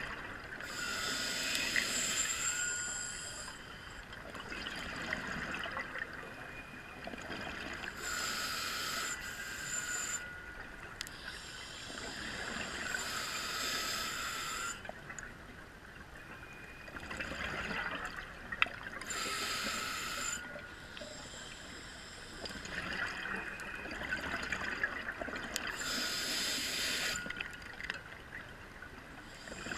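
A scuba diver breathing through a regulator underwater. Each inhalation is a hiss with a thin whistle, coming about every six seconds, and exhaled bubbles gurgle between breaths.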